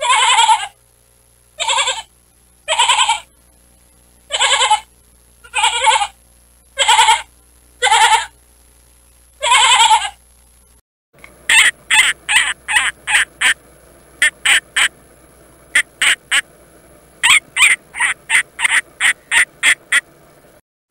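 A goat bleating eight times, each call half a second to a second long. Then, about eleven seconds in, an eagle gives runs of short, rapid, high calls in several clusters.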